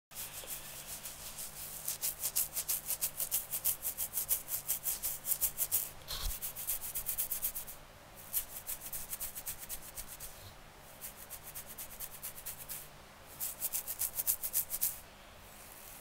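Fingernails scratching a stubbly beard: quick back-and-forth scratching strokes, several a second, in bouts with short pauses between.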